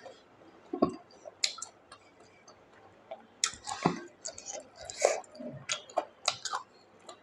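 Close-miked eating sounds: a person chewing food with irregular wet smacks and clicks of the mouth, and a couple of deeper thuds.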